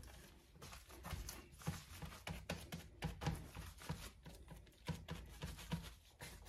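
Plastic-gloved hands patting, pressing and smoothing raw ground beef into a meatloaf in a metal baking pan: faint, irregular soft pats and squishes, a few a second.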